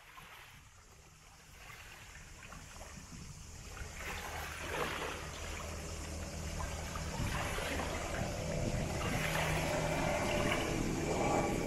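Small waves lapping and washing onto a sandy beach at the water's edge, fading in over the first few seconds and then coming in surges every second or two. A low steady hum runs underneath.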